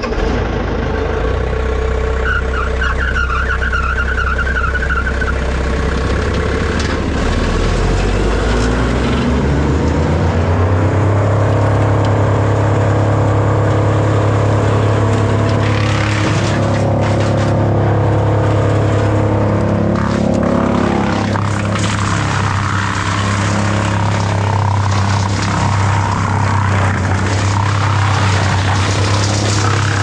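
A large engine running at low speed, then revving up over a couple of seconds about nine seconds in and holding a steady higher speed.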